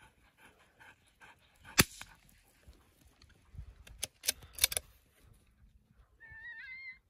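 Dogs panting, then sharp cracks: one loud crack about two seconds in and a quick run of four more about four seconds in. Near the end comes a high, wavering whine.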